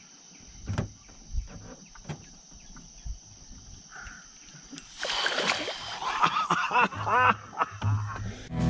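Water splashing as a hooked giant snakehead thrashes at the surface and is scooped into a landing net. Scattered small splashes and knocks come first, then louder, continuous splashing from about halfway through.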